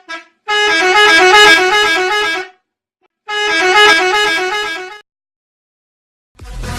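Bus 'telolet' musical horn playing its tune: a short toot, then two long blasts of about two seconds each, the notes stepping up and down.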